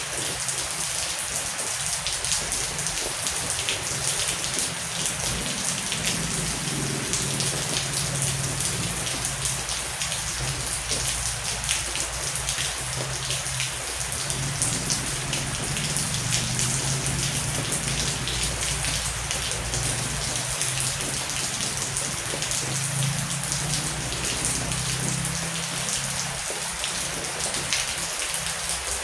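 Heavy rain falling steadily, a dense hiss of countless drops striking a surface. A low rumble swells and fades beneath it.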